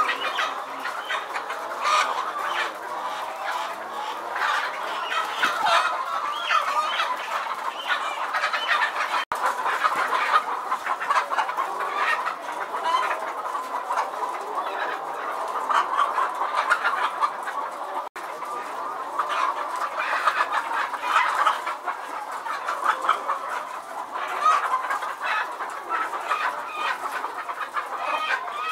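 A large flock of hens in battery cages clucking and calling continuously, many voices overlapping. The sound drops out for an instant twice, once about a third of the way in and once about two-thirds of the way in.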